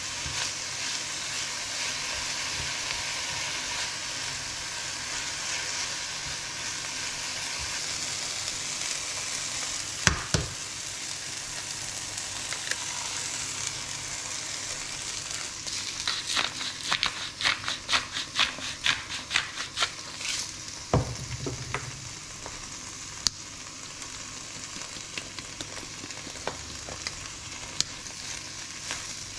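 Spinach and then eggs sizzling steadily in oil in a small nonstick frying pan. A single sharp knock comes about a third of the way in. Past the halfway mark there is a quick run of silicone spatula strokes in the pan, several a second, as the eggs are scrambled into the spinach, and the sizzle carries on underneath.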